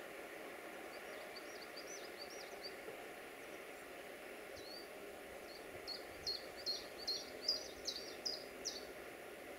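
A songbird chirping in quick rising and falling notes: a short phrase about a second in, then a louder, busier run from about six to nine seconds in. Under it a faint steady hum from the distant, approaching VT614 (DB Class 614) diesel multiple unit.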